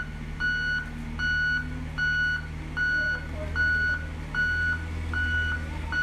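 Reversing alarm of a heavy clearing vehicle, one steady high beep a little under every second, over the low drone of its running diesel engine as it backs along the road.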